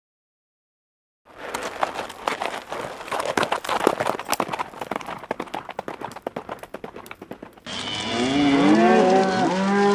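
Silent for about the first second, then a dense run of clicks and splashes of water as horses drink and wade in a pond. Near the end it changes sharply to cattle mooing, several long overlapping calls that are the loudest part.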